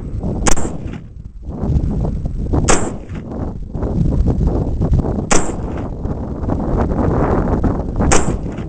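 AR-15 rifle fired four times in slow single shots, about two and a half seconds apart, over a steady low rumble.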